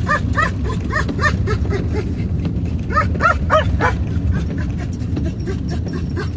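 A dog giving short, high-pitched excited yelps: a run of them in the first second or so and four louder ones about three seconds in. Under them runs the steady low rumble of the moving vehicle.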